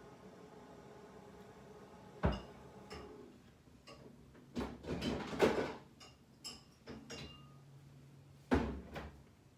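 Scattered knocks and clatter of household handling: a sharp knock about two seconds in, a busier run of knocks and rattles around the middle, and another sharp knock near the end, over a faint steady hum.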